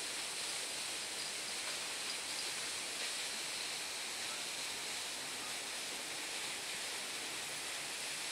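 Steady, even rush of flowing stream water.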